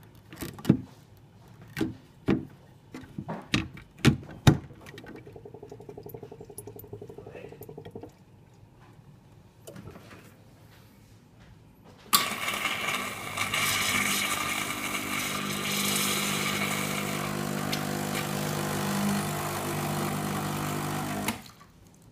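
Nuova Simonelli espresso machine running for about nine seconds after a front-panel button is pressed, a loud steady buzzing hum with hiss that cuts off suddenly. Before it come a few sharp knocks and clicks from the machine being handled, and a quieter hum.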